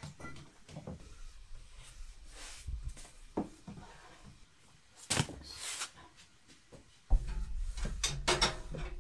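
Dough being handled on a wooden board, with scattered knocks and clatters and one sharper knock about five seconds in. From about seven seconds in comes the low rumble and repeated knocking of a wooden rolling pin rolling dough out on a round wooden board.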